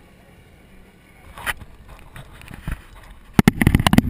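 Handling noise on the boat-mounted camera: scattered knocks, then a rapid cluster of loud knocks and rattles about three and a half seconds in as the camera swings up off the boat.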